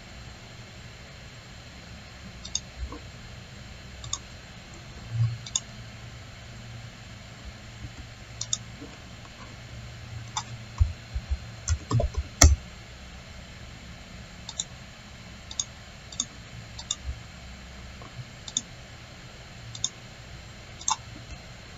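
Computer mouse clicking at irregular intervals, with a quick run of louder knocks about eleven to twelve seconds in, over a steady low hum.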